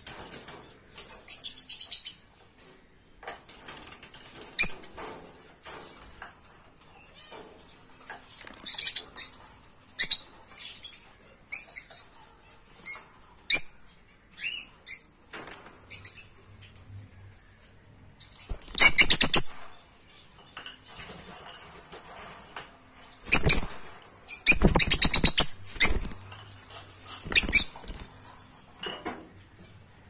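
A flock of peach-faced lovebirds in a cage chattering in short, sharp, high-pitched chirps and squeaks, with several louder, longer harsh bursts in the second half.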